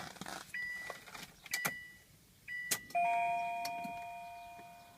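Car's warning chime: three short high beeps about a second apart with sharp clicks, then a ringing chime about three seconds in that slowly fades away.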